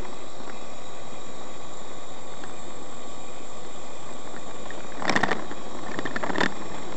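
Steady road and engine noise of a car driving, heard from inside the cabin, with a brief clatter about five seconds in and a shorter one near the end.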